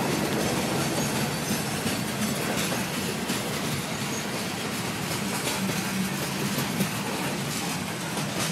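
Freight cars of a CSX mixed freight train, boxcars and refrigerator cars, rolling past: a steady rumble of steel wheels on rail with many quick clicks and clacks through it.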